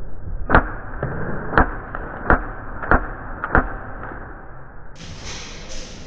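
Magfed paintball markers firing: five sharp pops spread over about three seconds, with a few fainter pops between them.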